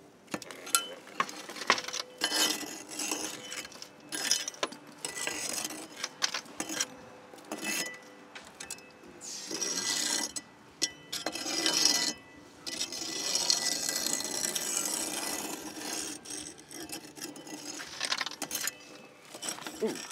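A flat steel fire hook scraping and raking hot coals and ash out across a cob oven's hearth, in irregular rough scrapes with clinks of coals. There are longer drawn-out scrapes about half way through.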